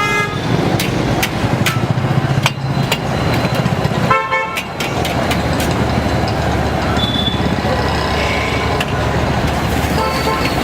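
Vehicle horns honking over steady street traffic noise: a short blast at the start, a stronger half-second honk about four seconds in, and another honk near the end.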